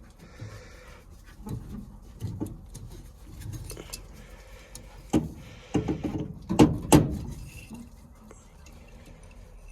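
Irregular knocks and clatters of hands working on the furnace and its tools, loudest in a cluster of sharp knocks about five to seven seconds in.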